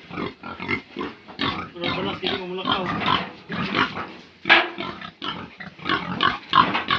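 Several pigs calling in short, overlapping grunts and cries, with one sharp, louder call about four and a half seconds in.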